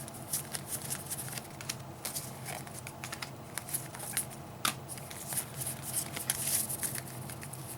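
Stack of trading cards being handled and sorted by hand: irregular papery rustling and small clicks as cards slide and are flicked over one another.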